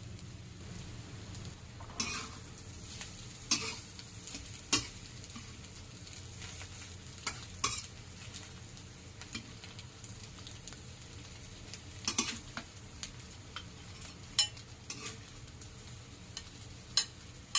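Egg omelette with bologna frying in a metal wok with a steady faint sizzle, while a metal spatula stirs it, scraping and clanking sharply against the wok every few seconds.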